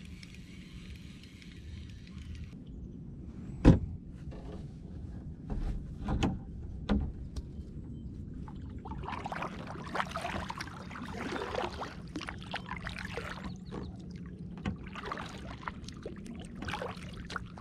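A spinning reel being cranked for the first couple of seconds, then a few sharp knocks, the loudest about four seconds in. From about nine seconds on, a kayak paddle dips and splashes through the water in repeated strokes, with dripping from the blades.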